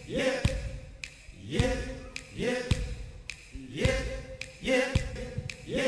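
A male singer's short sung "yep", looped and repeated over and over, each one sliding up into a briefly held note. Sharp knocks and a low rumble from the live band sit between the repeats.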